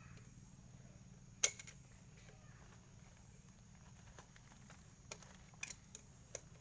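A sharp knock about a second and a half in, then a few lighter clicks near the end, over a faint steady low hum.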